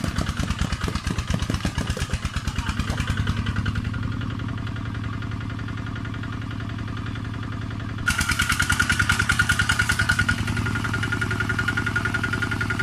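Single-cylinder diesel engine of a two-wheel walking tractor chugging while it pulls a loaded trailer. The beat surges unevenly for the first few seconds, settles, then runs louder and faster from about eight seconds in, with a steady high whine on top.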